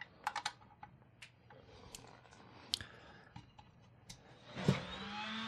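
Small plastic clicks and taps as a USB stick is plugged into an original Snapmaker 3-in-1 3D printer. Near the end there is a thump as the printer is switched on, then a steady hum and whine that rises briefly and holds as the machine powers up.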